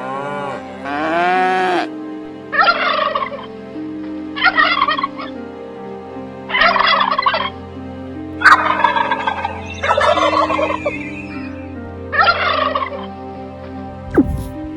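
Bird calls: a few gliding calls at the start, then about six short, harsh bursts roughly every two seconds, over steady held tones.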